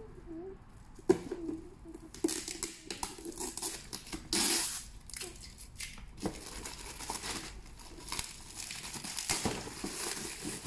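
Gift wrapping paper being torn and crinkled as a present is unwrapped, in a run of quick rustles that starts about two seconds in, with a longer tear near the middle.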